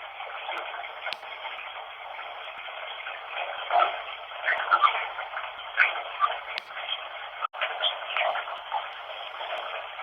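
Steady hiss of running water, thin and narrow-band like a radio, with brief voice-like snatches scattered through it. It is running water used as a noise bed in which to listen for spirit voices. The sound cuts out for an instant about three-quarters of the way through.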